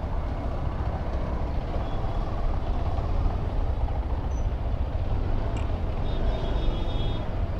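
A motorcycle's single-cylinder engine running at low speed in slow, dense city traffic, mixed with the engine of a bus running close alongside and other vehicles around. A steady low rumble throughout.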